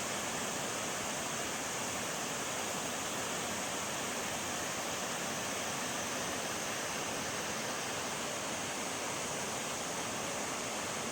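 Shirahige Waterfall's water rushing: a steady, unbroken hiss of falling water, brightest in the high range.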